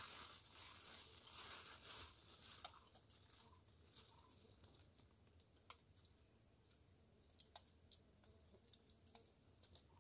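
Faint crinkling and rustling of a plastic bag being handled for the first few seconds, then near silence with scattered small clicks.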